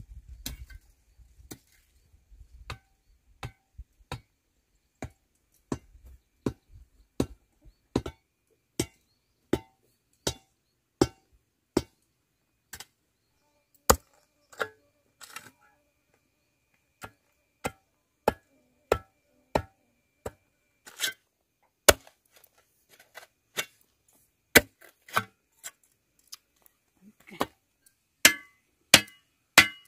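Repeated sharp blows of a hand tool striking, about one every three-quarters of a second, coming faster near the end.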